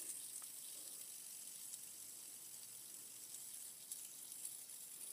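Fidget spinner spinning freely on its centre ball bearing, held between finger and thumb: a faint, steady high-pitched whirring hiss.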